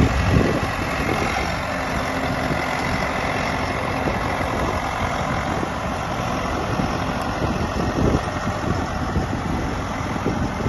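Farm tractor's diesel engine running steadily as it drives past towing a trailed sprayer.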